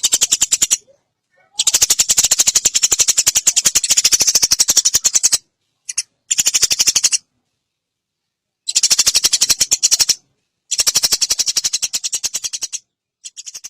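Eurasian tree sparrow chattering: rapid runs of sharp chirps, about a dozen a second, in bursts of one to four seconds with short pauses between them.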